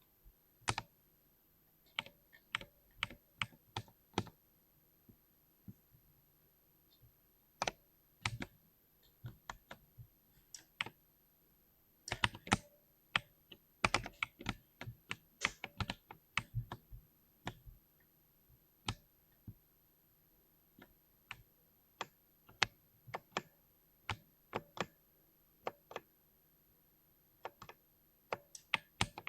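Mechanical keyboard being typed on: single keystrokes and short irregular runs of key presses with pauses between, the busiest flurry about halfway through.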